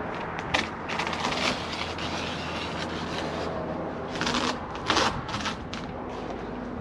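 Intermittent clicks, knocks and scraping of hands and tools working on slide-out awning hardware, over a steady low mechanical hum.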